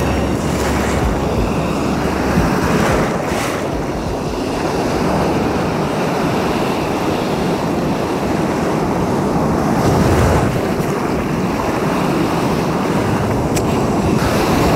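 Ocean surf washing and foaming up the beach in a steady rush, with wind on the microphone.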